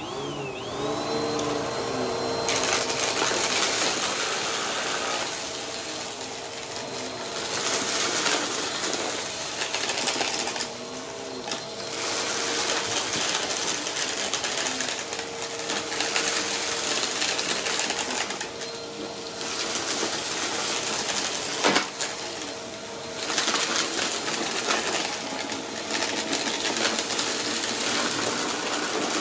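Upright vacuum cleaner running over a rug thick with grit and debris, with dense crunching and rattling as the debris is sucked up and clatters through the machine over a steady motor whine. The level rises and dips as the head passes back and forth over the pile, and a sharp click sounds about three quarters of the way through.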